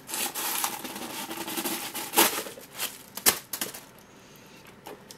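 A coated-canvas handbag being opened and handled: rustling of the paper stuffing inside, then a few sharp clicks of its metal clasp and hardware, with handling quieter near the end.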